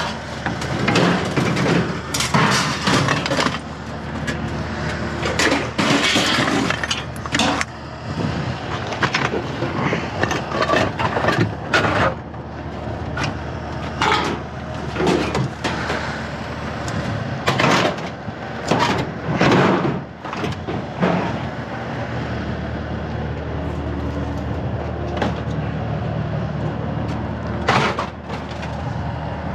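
Scrap metal clanking and scraping as sheet-metal appliance panels and metal chair frames are shoved into a packed van, a run of irregular knocks and rattles over a steady low rumble.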